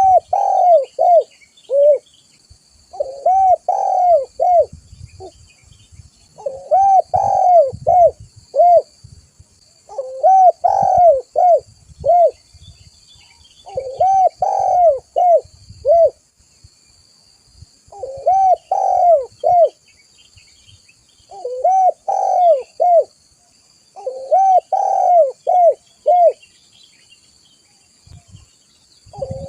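Spotted dove (tekukur) cooing: about eight phrases, one every three to four seconds, each a rising-and-falling coo followed by three or four shorter coos, with a longer pause near the end.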